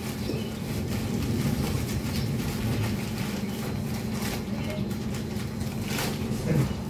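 Hands pressing and levelling potting soil around a newly potted shrub, with faint rustling and scraping and a sharper rustle about six seconds in, over a steady low mechanical hum.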